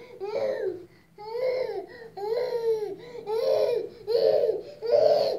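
Toddler crying in a string of short wails, about one a second, each rising and then falling in pitch.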